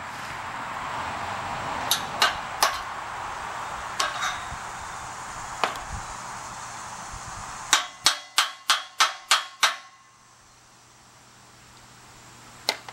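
Hammer blows: a few scattered sharp strikes, then a quick run of seven at about three or four a second, and a single last blow near the end. A steady rushing noise runs under the first part and fades out as the run of blows begins.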